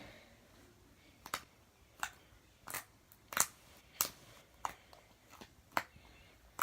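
Freshly made slime being squeezed and poked by hand, giving a series of short, sharp clicking pops, about one every two-thirds of a second from about a second in.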